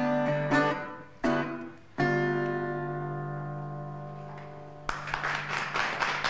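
Delta blues played on a resonator guitar: a few picked notes and a strum, then a final chord left ringing and slowly dying away. About five seconds in, the audience breaks into applause.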